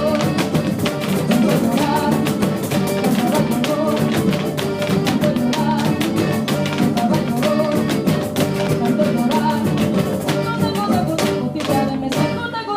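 Live Mexican folk ensemble playing: fast, rhythmic strummed guitars and jarana-type strings over percussion and a pitched melody. The playing thins out near the end.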